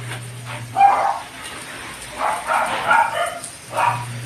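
A dog barking repeatedly in short bursts, several in quick succession in the middle, over a steady low hum that stops about a second in and comes back near the end.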